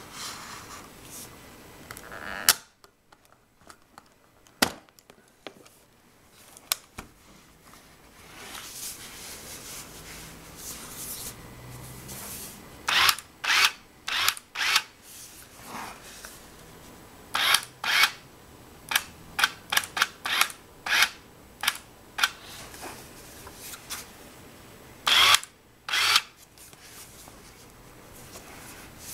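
Polaroid SX-70 Sonar instant camera being opened and worked by hand: a loud snap a couple of seconds in as the folding body opens, then a long run of sharp clicks and snaps from its mechanism.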